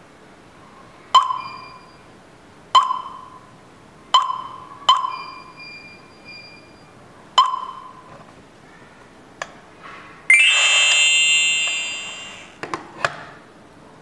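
Touchscreen alarm panel beeping at key presses: five short, ringing beeps in the first eight seconds. Then, about ten seconds in, a louder chime of several tones that lasts about two seconds and fades, the panel acknowledging a newly learned wireless detector. A couple of light clicks follow.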